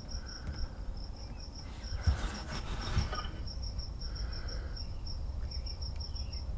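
Insects chirping steadily in the surrounding grass, a rapid even pulse of high chirps about five times a second, over a faint low rumble.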